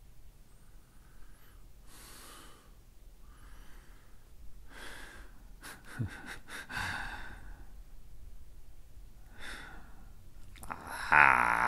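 A man breathing heavily in slow, separate breaths and sighs, about one every second and a half, over a faint low room hum. Near the end comes a louder vocal sound from him.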